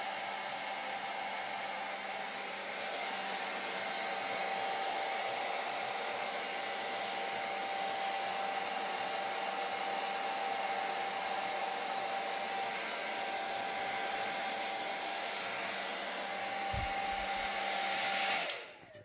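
Hair dryer blowing steadily, an even rushing of air with a constant motor whine and low hum. It stops abruptly near the end.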